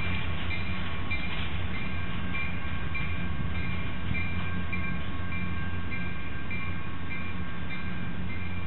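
Diesel locomotives running with a steady low drone while a bell rings evenly, about twice a second.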